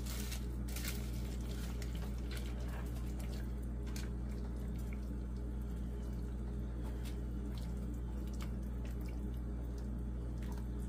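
A silicone spatula stirring a pot of brothy chicken stew with egg noodles: liquid sloshing and dripping, with scattered light clicks of the spatula against the pot. A steady low hum runs underneath.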